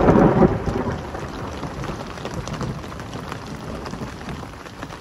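A thunderclap rumbling at the start and dying away within about a second, over steady rain falling with many small drop ticks.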